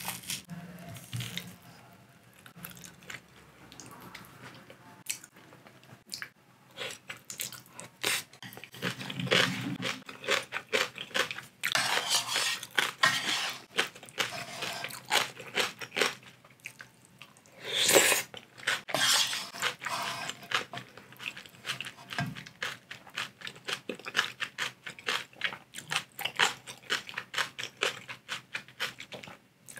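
Close-miked eating: crunching and chewing of cabbage kimchi, mixed with a wooden spoon scooping broth-soaked rice from a metal pot. The sounds come as irregular wet clicks and crunches, with a louder burst a little past halfway.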